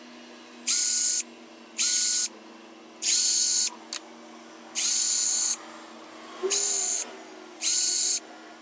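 Cordless drill drilling small holes into a carved tupelo wood lure body, in six short bursts of high motor whine, each spinning up quickly at the start.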